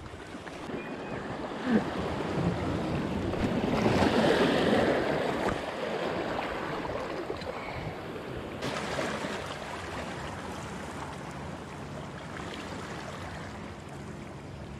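Small sea waves washing and lapping against the boulders of a rocky breakwater, swelling about four seconds in and then easing off.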